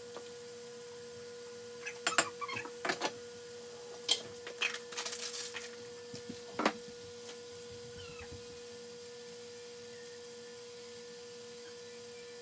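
Kitchen handling noises: a few knocks and clinks as things are handled at the counter in the first seven seconds, over a steady hum.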